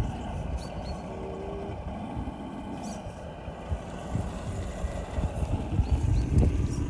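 A 1/10-scale RC rock crawler's electric motor and geared drivetrain whining as it crawls slowly up loose dirt and rocks, over an irregular low rumble that grows louder near the end.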